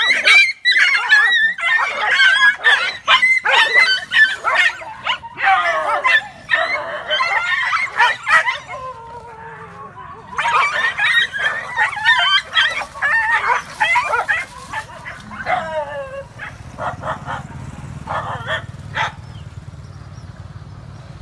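Several dogs yelping and barking in rapid, overlapping bursts as they scuffle. There is a short lull about nine seconds in, and only a few spaced yelps come in the last seconds before it quietens.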